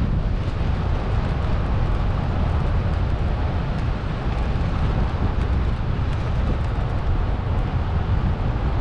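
Steady wind buffeting the microphone of a moving bike: a dense low rumble with hiss above it, unbroken throughout.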